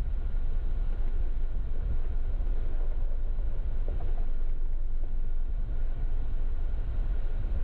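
Jeep driving on an off-road trail: a steady low rumble of engine and road noise.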